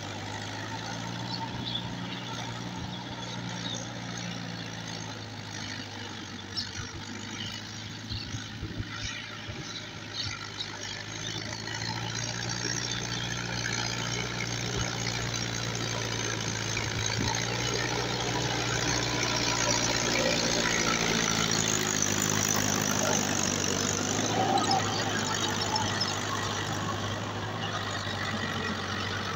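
Farm tractor's diesel engine running steadily while pulling a rotary tiller through the soil. It grows louder from about halfway in, loudest a little past two-thirds, as the tractor comes closer, then eases slightly near the end.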